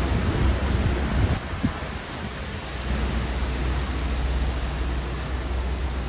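Strong wind from an approaching typhoon rushing past and buffeting the microphone, a steady noise with low rumbling gusts that rise and fall.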